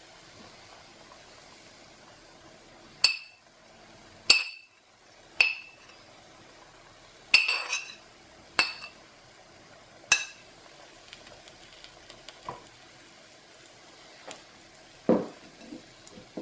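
A metal spoon striking and scraping a ceramic plate: six sharp, ringing clinks over about seven seconds, then a few softer knocks near the end, over a faint steady hiss.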